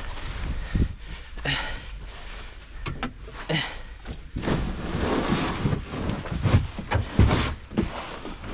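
Irregular scraping, crunching and knocks as a kayak is hauled over snowy ground, over a steady low rumble of wind on the microphone.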